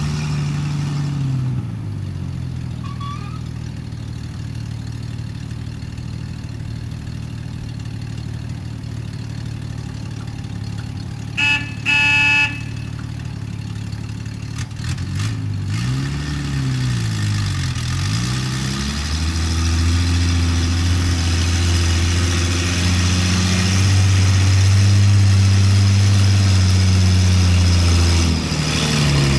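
1954 Dodge M43 military ambulance's flathead six-cylinder engine running as the truck drives. About halfway through the horn sounds twice in quick short honks; the engine pitch then rises and falls a few times and holds at higher revs, dropping shortly before the end.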